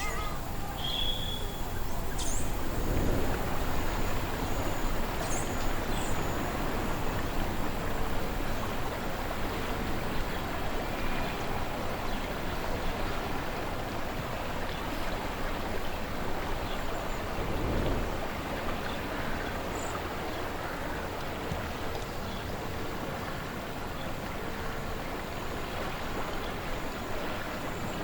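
Slow-moving river water flowing steadily, with wind swelling twice in low gusts. A few short bird chirps come in the first few seconds.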